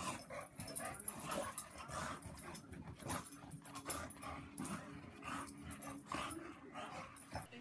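Two bulldogs play-fighting, making short, irregular dog sounds as they wrestle.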